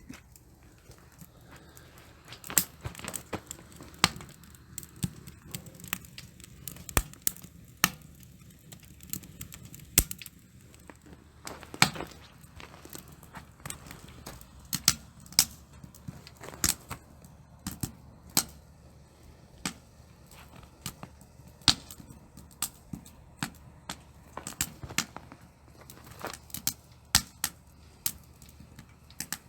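Wood fire crackling in a titanium camp stove: irregular sharp pops and snaps, about one or two a second.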